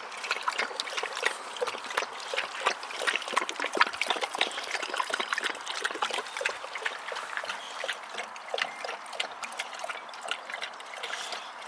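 Running water trickling and splashing, broken up by many small splashes as a boxer dog plays in the stream of water.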